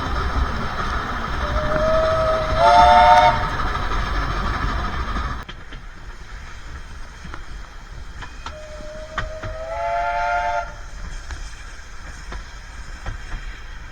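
Steam locomotive whistle blown twice, about seven seconds apart; each blast starts as a single note and opens into a chord. Under the whistle is the low rumble of the train running.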